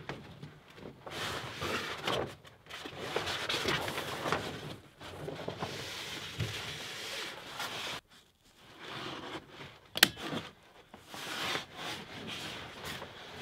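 Plastic vapor barrier sheet being unrolled and handled against a wall, rustling and crinkling unevenly, with one sharp click about ten seconds in.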